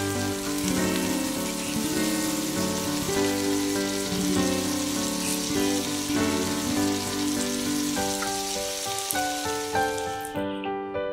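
Batter-coated seaweed roll deep-frying in hot oil: a steady crackling sizzle under background music. The sizzle stops near the end, leaving only the music.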